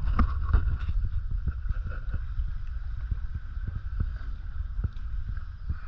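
Wind rumbling on the microphone, with water noise from a small boat moving through the water and a faint steady hum.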